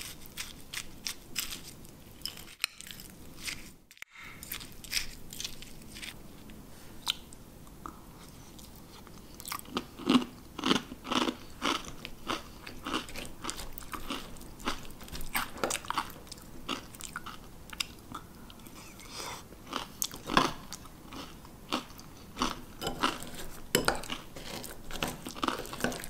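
Close crunchy chewing of a yogurt bowl with granola and berries, with a spoon clicking and scraping against the ceramic bowl. The crunches come in clusters, heaviest about ten seconds in and again near twenty seconds.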